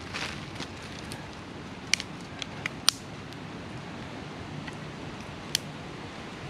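Dry twigs snapping and crackling at a small kindling fire as it catches: a handful of sharp, irregular cracks, the loudest about two and three seconds in, with another near the end.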